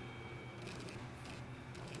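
Faint, steady background music.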